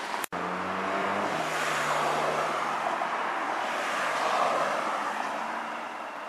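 Road traffic: motor vehicles passing along a road, the engine and tyre noise swelling for a few seconds and then easing off. About a third of a second in, the sound drops out for an instant.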